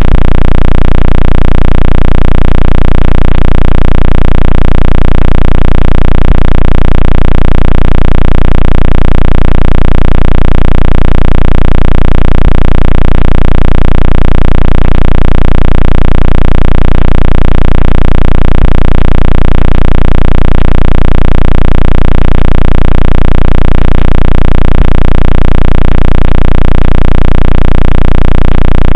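Synthesized water-eject tone for clearing a phone speaker, played at full volume: a steady, very loud low electronic buzz that throbs evenly a few times a second.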